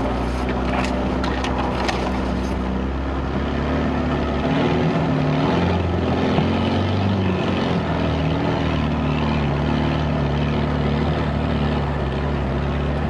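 Land Rover 4x4's engine running at low revs, a steady low drone whose note rises and falls as it pulls through a flooded, muddy lane. A few sharp clicks sound in the first couple of seconds.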